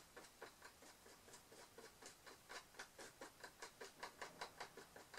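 Faint, quick, light ticking and tapping, about four or five small clicks a second, from wooden sticks working a drop of epoxy resin over a tiny earring base.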